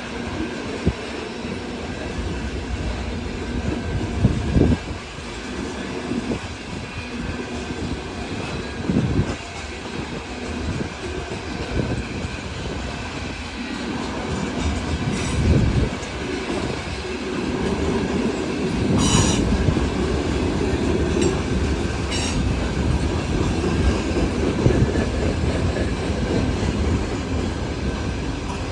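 Cars of a loaded freight train rolling past, wheels clattering over the rail joints with a steady rumble. Brief wheel squeals come a few times in the second half, as the rumble grows louder.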